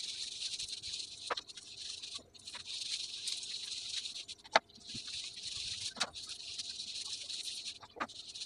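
Rubber-gloved hands rubbing dye through wet hair: a steady high rustling hiss in stretches broken by short pauses, with a few sharp clicks.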